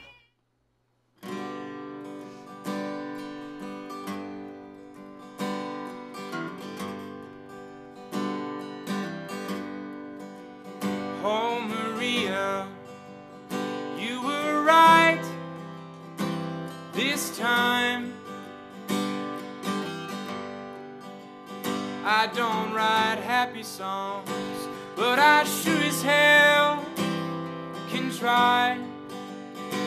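Background music: strummed acoustic guitar with a singing voice, starting about a second in after a brief silence.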